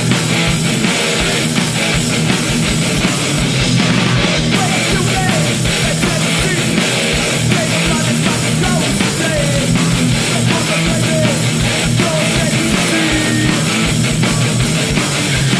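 Hardcore punk band playing live and loud: distorted electric guitars and drums, continuous and dense.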